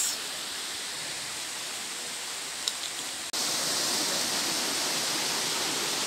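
Steady rush of water from a waterfall and stream, with a sudden break about three seconds in, after which it is a little louder.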